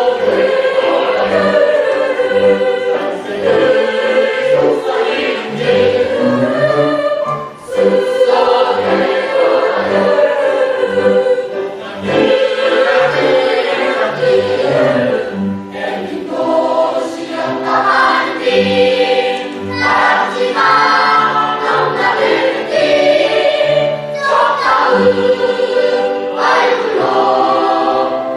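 A family choir sings a song with accompaniment under it. The sung notes are held and the low bass line moves steadily throughout.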